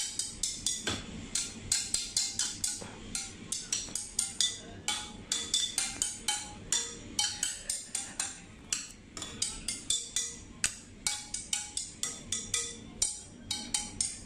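Stemmed wine glasses partly filled with water struck with a thin stick: a fast, uneven string of clinking taps, about four a second, each ringing briefly at one of several pitches that change from glass to glass.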